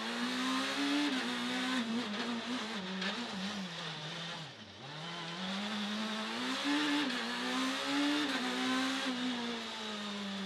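Citroën C2 Super 1600 rally car's four-cylinder engine, heard from inside the cabin while driven hard. The engine note climbs and drops again and again, with a brief lift-off about four and a half seconds in where pitch and loudness fall before it pulls hard again. A steady rush of tyre and road noise runs underneath.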